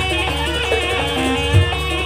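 Live Javanese jaranan ensemble music: a dense gamelan-style texture of repeating pitched percussion notes under a high, wavering melody line. A heavy low drum or gong stroke lands right at the start and again about a second and a half in.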